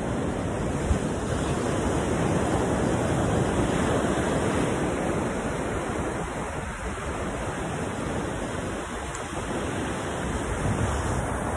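Ocean surf breaking and washing up a sandy beach, a steady rushing noise that swells and ebbs slightly.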